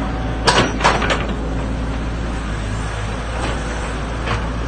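Excavator's diesel engine running steadily, with a few sharp metallic knocks about half a second to a second in as the bucket and arm work the ground.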